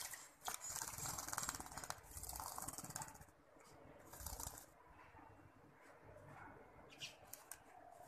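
Pet bulbul moving about, with light rustling and scattered clicks. A denser crackly rustle runs from about half a second to two seconds in, and a few sharp clicks come near the end.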